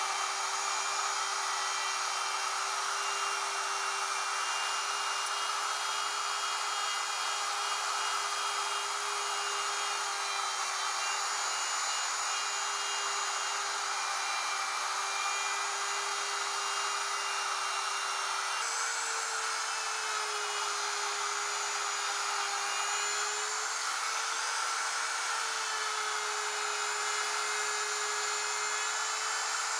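Plunge router with a 3/4-inch mortising bit running continuously while cutting a shallow recess into a plywood workbench top. A steady high whine that steps up slightly in pitch about two-thirds of the way through, then wavers a little.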